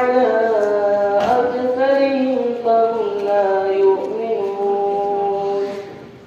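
A boy's voice singing a slow, melodic chant into a microphone, with long held notes that slide between pitches. The phrase ends near the end.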